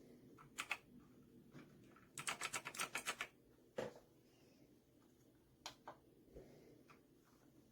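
Typing on a computer keyboard: a few single key clicks and a quick run of keystrokes lasting about a second, about two seconds in.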